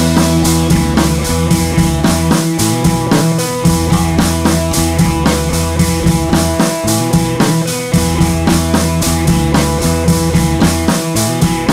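Background rock music with a steady drum-kit beat.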